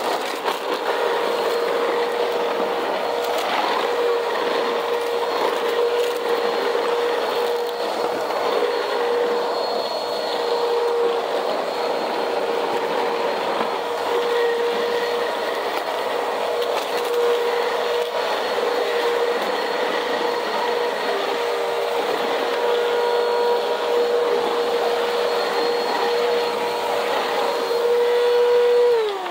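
Bissell CleanView upright vacuum running steadily on cement, its motor hum mixed with the crackle of grit and dirt being sucked up. Near the end it is switched off and the motor whine falls away as it spins down.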